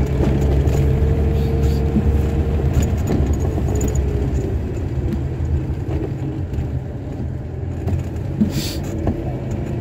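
A car driving, heard from inside the cabin: steady engine and road rumble, with a faint hum that slowly drops in pitch over the first few seconds.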